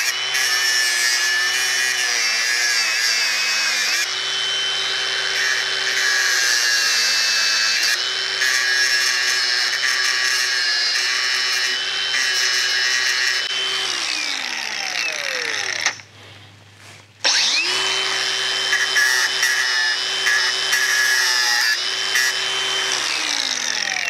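Hercules cordless angle grinder grinding off the sticking-out ends of hardened steel screws in an oak bench top, its motor whine steady under the load. It winds down about 14 seconds in, stops for a second or so, starts again and winds down once more near the end.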